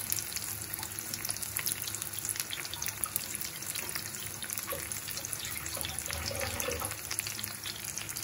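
Seer fish slices pan-frying in shallow oil in a non-stick pan: a steady sizzle full of fine crackles and small pops.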